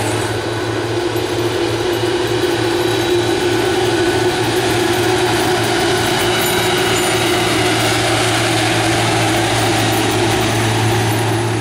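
Harvest machinery running steadily at wheat harvest: a constant low engine drone under a dense mechanical rush and clatter.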